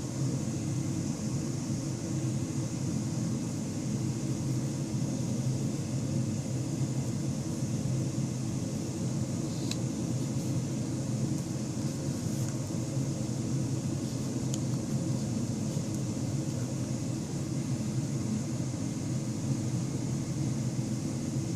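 Steady low background hum with a faint hiss, such as a fan or air conditioner running in a room, with a few faint clicks near the middle.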